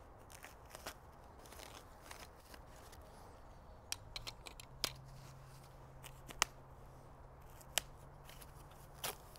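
Foam packing wrap being cut with a pocketknife and pulled off the parts of a camping cot. Faint rustling is broken by about five sharp snips and clicks in the second half.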